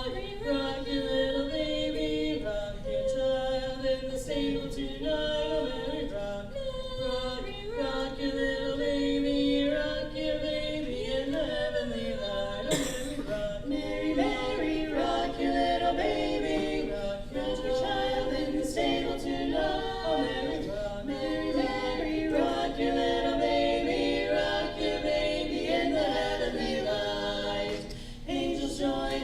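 An a cappella vocal group singing in harmony, several voices moving together with no instruments.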